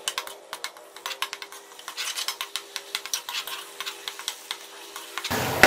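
Steel spoon stirring chopped onions frying in oil in a metal pot: irregular clinks and scrapes of the spoon against the pot over a light sizzle.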